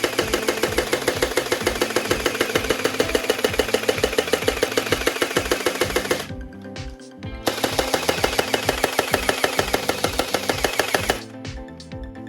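Electronic toy gun firing its rapid-fire sound effect, a fast, even rattle of about seven or eight shots a second with a steady buzzing tone beneath. One long burst stops about six seconds in, and after a short pause a second burst of nearly four seconds follows.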